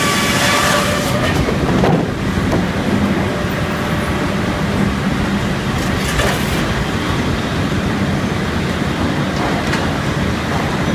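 Helle circle sawmill running: a steady, loud mechanical din from the mill's machinery, with a high whine that fades out in the first second or two. A brief knock comes about two seconds in.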